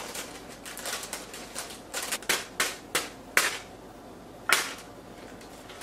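A clear plastic bag crinkling and snapping as it is shaken out over a steel mixing bowl: a handful of sharp crackles, clustered between about two and four and a half seconds in.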